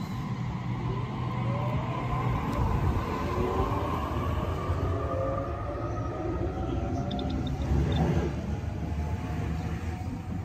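Sydney Trains Waratah B-set electric train accelerating away from the platform. Its IGBT-VVVF traction inverters give several whining tones that rise in pitch together as it gathers speed, over the rumble of wheels on rail.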